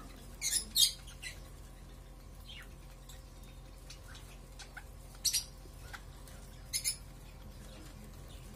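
Budgerigars giving scattered short, high chirps, some in quick pairs, over a steady low hum.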